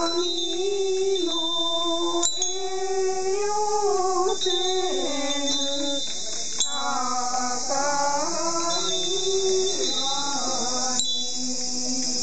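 Buddhist hymn chanting in long, drawn-out held notes that step up and down in pitch, with a small bell struck sharply about every four and a half seconds.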